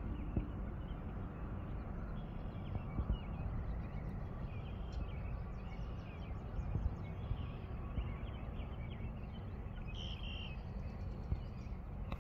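Birds chirping and calling, with many short high calls scattered throughout and a louder one about ten seconds in, over a steady low rumbling noise.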